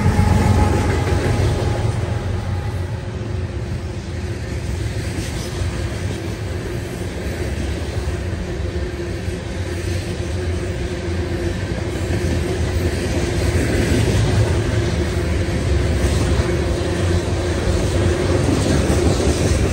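A freight train passing close by: the diesel locomotives' engines fade in the first second or two, then a long string of covered hopper cars from a sand train rolls past with steady wheel-on-rail noise.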